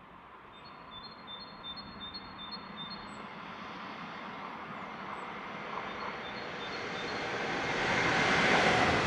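ÖBB S-Bahn electric multiple unit coming around a curve and passing close below, its running and wheel-on-rail noise growing steadily louder and peaking near the end.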